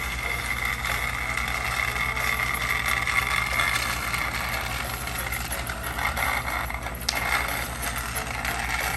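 Battery-powered motorized Thomas toy train running along plastic track with a steady whirring and rattling, and a sharp click about seven seconds in.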